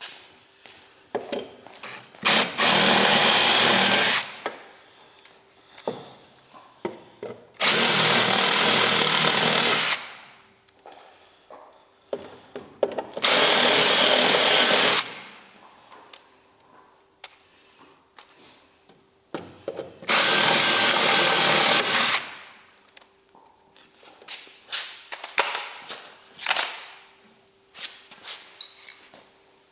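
A handheld power tool run in four bursts of about two seconds each, each one winding down quickly after release, with light clicks and knocks of handling in between.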